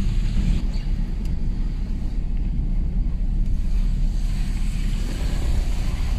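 Car driving through shallow floodwater, heard from inside the cabin: a steady low rumble of engine and tyres with a hiss of water under the wheels.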